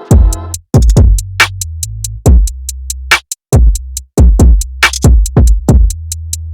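Hip-hop instrumental beat: drum machine kicks with deep sliding 808 bass notes and fast hi-hat ticks, dropping out briefly in places.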